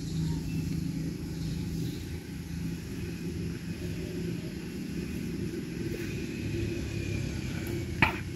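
A steady low rumble, with a sharp click about eight seconds in.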